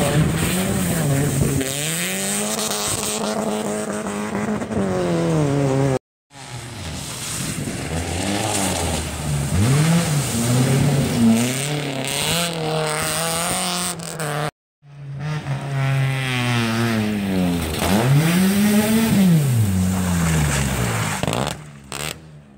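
Rally car engines revving hard as the cars splash through a shallow ford, the pitch climbing and dropping again and again through gear changes and lifts off the throttle, with sweeping passes. The sound cuts out abruptly twice, about six and fifteen seconds in, and fades near the end.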